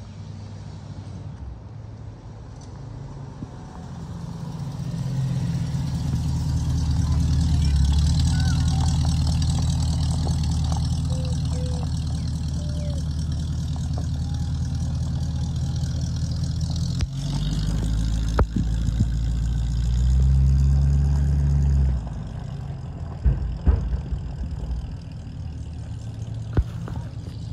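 Hot rod roadster's engine running, getting louder about four seconds in and holding steady, then dropping away about 22 seconds in. A few sharp knocks follow near the end.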